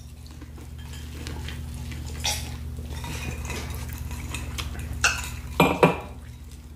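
Table-side eating sounds: corn on the cob being bitten, with a few light clicks and clinks of dishes and a drinking glass, over a steady low hum.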